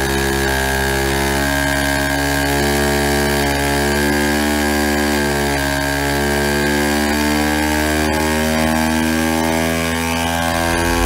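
Me 262's Jumo 004 jet engine being started by its small two-stroke Riedel starter motor in the intake nose cone. The starter runs with a buzzing, wavering pitch while a steady high whine sits above it. A deeper rumble swells near the end as the turbine spins up.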